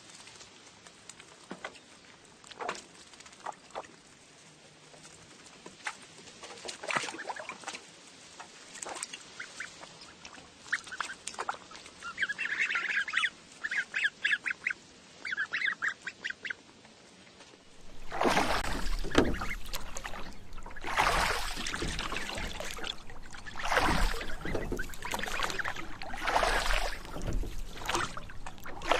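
Ducks quacking in short runs of quick calls, then, from about two-thirds of the way in, louder continuous splashing and sloshing of water.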